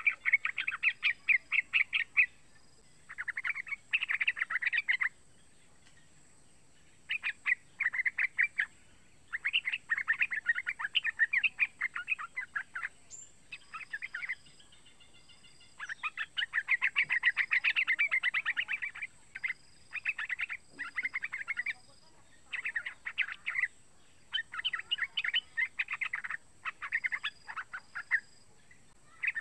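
Young yellow-vented bulbul calling in phrases of fast chattering notes, each phrase one to three seconds long with short pauses between, and a few brief thin high notes in the gaps.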